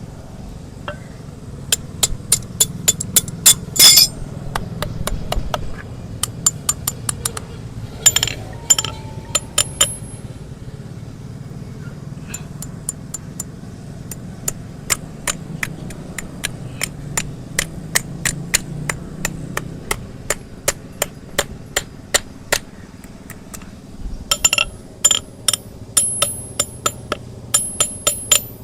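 Hoof-trimming tools working on a donkey's overgrown hoof: bursts of sharp, hard taps and clicks, several a second, with pauses of scattered single clicks between.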